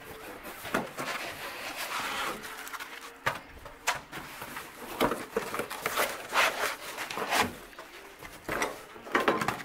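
Packing foam and cardboard being pulled out of a large shipping box around a 3D printer: irregular knocks, scrapes and rustles of handling, with several sharper knocks along the way.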